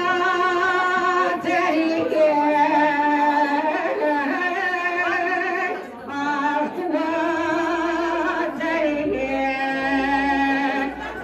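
A woman singing a Kurdish kılam solo, in long held, wavering notes, with a short pause for breath about six seconds in.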